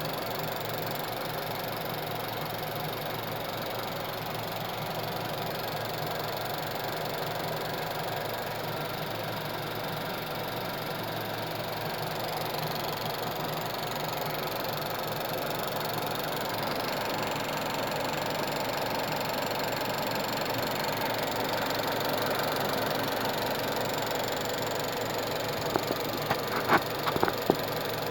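Volkswagen 1.8T turbocharged four-cylinder engine idling steadily with a ticking noise from the driver's side of the engine, which the owner suspects comes from the cam chain or the camshaft. A few sharp knocks sound close together near the end.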